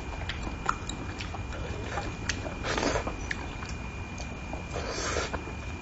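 Close-miked wet chewing and lip-smacking of a person eating saucy braised fish, with many small clicks and two longer, louder wet mouth noises, one near the middle and one near the end. A faint steady high whine sits underneath.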